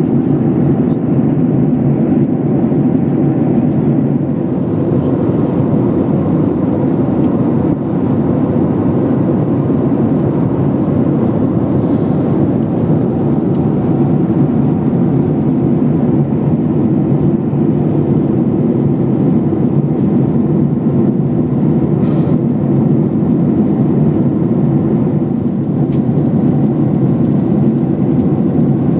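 Steady, loud rumble of a Boeing 737 heard from inside the passenger cabin with its engines running, with a faint high whine over it.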